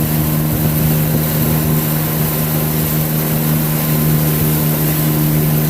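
Boat engine running at a steady drone under way, with a constant hiss of wind and water.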